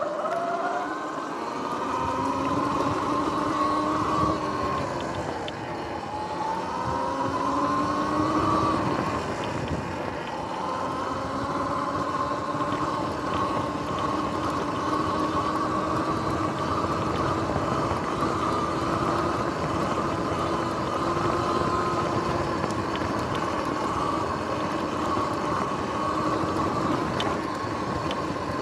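Sur-Ron X electric dirt bike's motor whining while riding off-road. The pitch rises and falls with speed, easing off twice in the first ten seconds, then holds fairly steady over a rushing noise.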